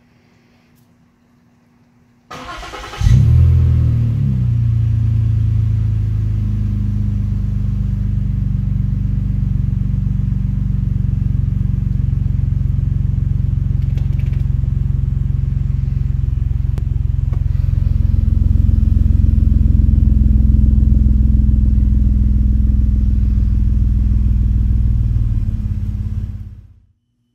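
2014 Ford Taurus with a Magnaflow cat-back exhaust starting up. The starter cranks briefly, and the engine catches with a quick flare in revs, the loudest moment. It then settles into a steady idle through the exhaust.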